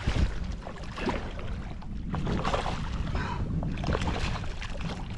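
A hooked tope thrashing at the surface beside a kayak, splashing the water in repeated surges, with wind rumbling on the microphone.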